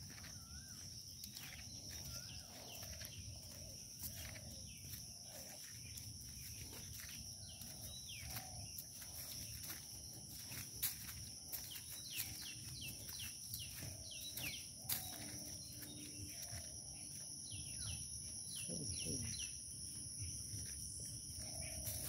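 Footsteps crunching on dry fallen bamboo leaves along a dirt path, over a steady high-pitched drone of insects. A bird gives a run of quick falling chirps about halfway through.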